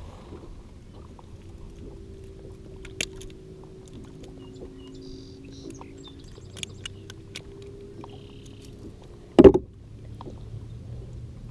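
Small clicks and knocks of a white bass being handled and a lure worked out of its mouth over a plastic kayak deck, with one loud thump about nine and a half seconds in. A steady low hum runs underneath.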